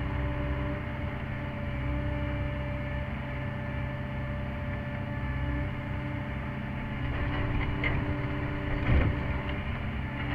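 Sany SY50U mini excavator's diesel engine running steadily under hydraulic load, heard from inside the cab. Two sharp knocks come near the end.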